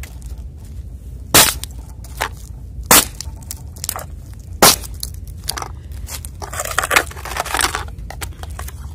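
Aluminium drink cans stomped flat with a shoe on asphalt: three sharp crunching crushes about a second and a half apart, with lighter knocks between. Near the end, crushed cans crinkle as they are handled.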